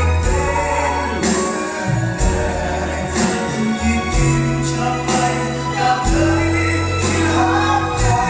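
Band music: sustained bass notes changing every second or two under a steady drum beat with cymbal hits.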